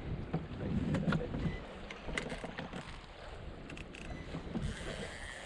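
Wind rumbling on a head-mounted camera's microphone, with scattered short clicks and knocks.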